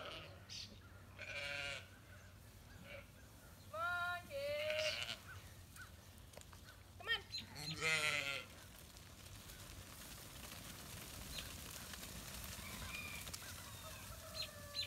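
Sheep bleating: a run of loud, quavering bleats, several overlapping, through the first eight seconds or so, then only faint calls.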